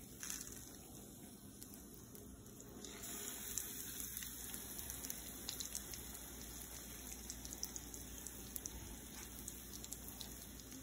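Breaded chicken breasts frying in shallow oil in a pan: a faint, even sizzle with light crackles, a little louder from about three seconds in as the oil heats around the breading.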